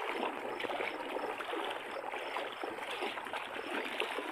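A person wading through knee-deep water, legs churning it into repeated splashes and sloshing with each stride.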